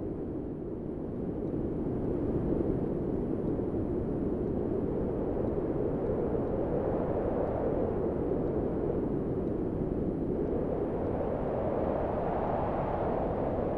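Strong storm wind blowing in continuous gusts, a deep rushing noise that swells and sinks, rising somewhat in pitch near the end.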